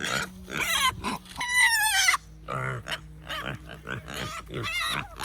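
Farm livestock calling: a string of short grunting calls, with one long, wavering, high-pitched bleat-like call about a second and a half in.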